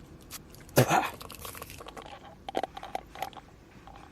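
Drinking a chocolate milkshake through a straw: a loud slurp about a second in, then a few short, quieter mouth noises and crinkles.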